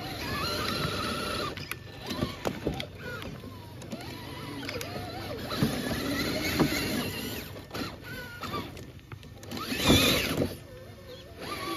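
Electric motors and geartrains of Axial SCX6 RC rock crawlers whining as they crawl over loose rocks. The pitch rises and falls with the throttle, with stones clicking under the tires. A short, loud noise burst comes about ten seconds in.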